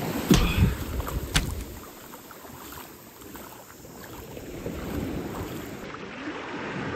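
Sea water washing and splashing, with wind buffeting the microphone for the first second or so.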